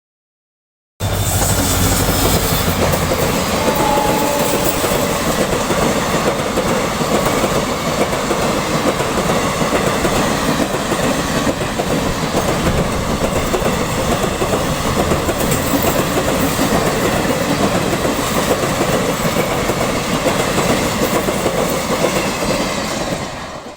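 Passenger train rolling past at speed, its coach wheels clattering steadily over the rail joints. It starts abruptly about a second in and cuts off just before the end.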